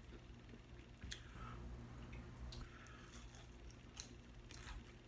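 Quiet close-up chewing, with a few faint wet mouth clicks and smacks spread over several seconds.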